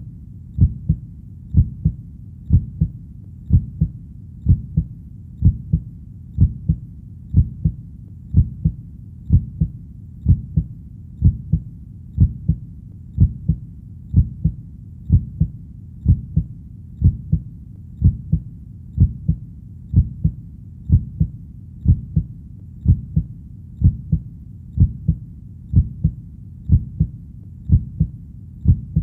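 Heartbeat, a steady lub-dub at about one beat a second, each beat a pair of low thumps over a faint low hum.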